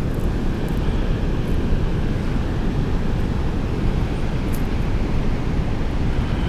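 Steady, even rushing of water pouring over a spillway, heaviest in the low end.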